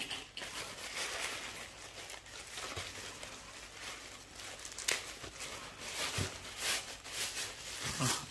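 Plastic bag rustling and crinkling as it is handled and opened, with a few light taps and clicks.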